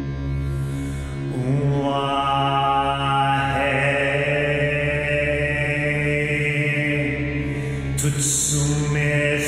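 Male voice chanting slow, sustained lines in reconstructed ancient Egyptian over a steady low drone, with a hissed 's' near the end.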